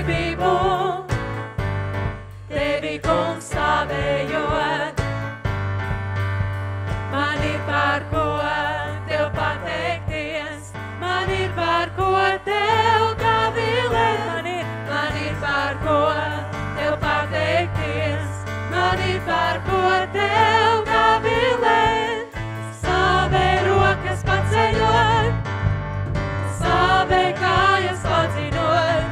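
Live worship band playing and singing: several voices sing together over electric guitar, drums and keyboard, with a steady low bass line underneath.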